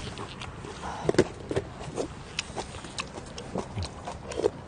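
Eating sounds: chewing and lip smacks, with scattered light clicks and ticks of spoons against metal rice bowls.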